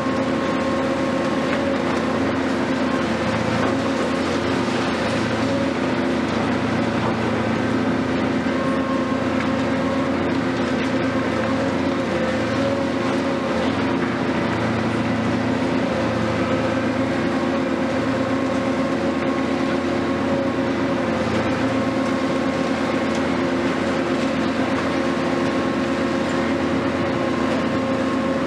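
Hitachi 470 long-reach demolition excavator running steadily, a loud constant drone of one unchanging pitch.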